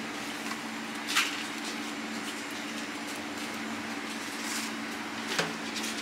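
Steady low mechanical hum, with two brief sharp sounds, one about a second in and one near the end.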